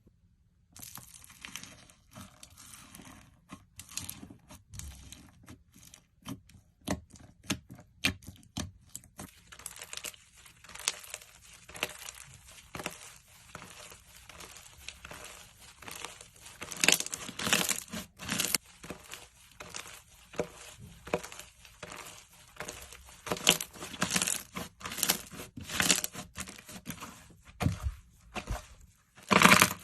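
Slime being squished and stretched by hand: irregular crackles and pops, with louder bursts in the second half.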